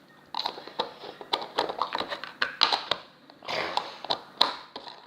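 Hands handling slime: a run of irregular small clicks and sticky pops, with a longer squelching smear about three and a half seconds in.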